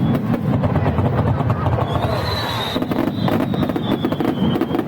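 Aerial fireworks crackling in a dense, rapid stream of small pops, with a high whistling tone from about two seconds in that slowly drops in pitch.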